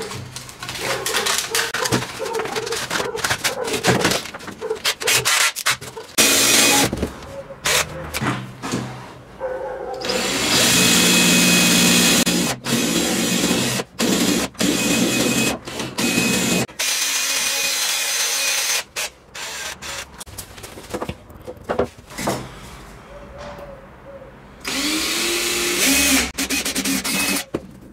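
Cordless drill running in two long bursts, spinning an abrasive attachment against a file and then inside an aluminium can; the second burst begins with a rising whine as the motor spins up. Scraping, rubbing and clicking handling noises come between the bursts.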